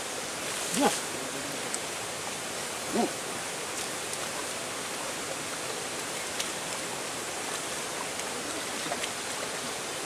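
Steady rush of flowing spring water, with two short calls that bend in pitch, the louder about a second in and a softer one about three seconds in.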